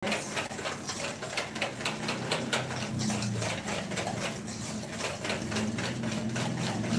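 Wire whisk beating egg yolks and sugar in a stainless steel bowl, clicking against the metal in a fast, even rhythm of several strokes a second. The yolks are being whisked until pale. A low steady hum lies underneath.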